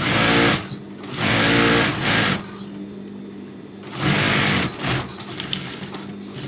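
Industrial sewing machine stitching silky sheet fabric in short runs: a brief run at the start, a longer one from about a second in, and another from about four seconds in. A steady low hum continues between the runs.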